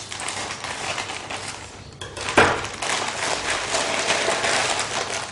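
Scissors snipping through a thin plastic courier mailer, then the plastic bag crinkling and rustling as it is handled and pulled open, with one sharp, loud crinkle about two and a half seconds in.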